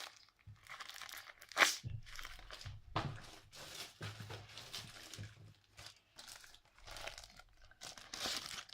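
Paper and plastic crinkling as homemade paper squishies, paper stuffed with plastic bag, are handled and squeezed: irregular rustling with one sharper crackle about one and a half seconds in.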